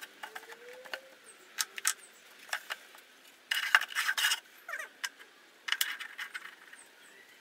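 Wooden moulding flask being handled and damp moulding sand broken out of it into the sand bin: scattered knocks and scrapes of wood on wood, with a longer spell of crumbling, falling sand about three and a half seconds in and another about six seconds in.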